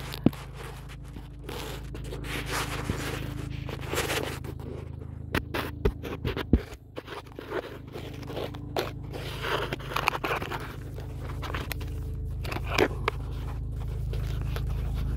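Close handling noise: irregular scraping, rustling and sharp clicks as the phone and hose are worked in tight under the machine, over a steady low drone of a helicopter overhead that grows louder toward the end.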